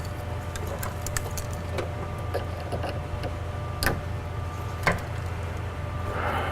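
Light clicks and taps of window-regulator parts being handled inside a car door, with two sharper clicks about four and five seconds in, over a steady low hum.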